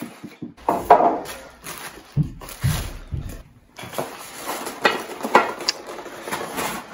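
Unpacking a meat grinder: the cardboard box and foam packing are scraped and rubbed and the plastic bag rustles. There is a sharp knock about a second in and a few dull thuds shortly after as the grinder is lifted out and set down on the table.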